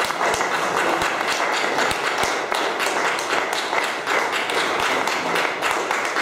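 Audience applauding, many hands clapping steadily and evenly.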